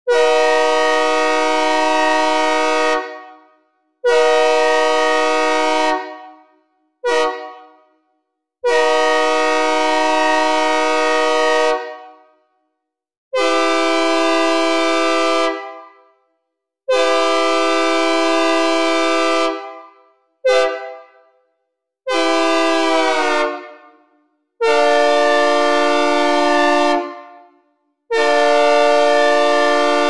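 Synthesized recreation of a Nathan K3H/K3L locomotive air horn, a steady multi-note chord sounded in long, long, short, long blasts (the grade-crossing signal), twice through and then two more long blasts. Each blast cuts off into a short echoing reverb tail.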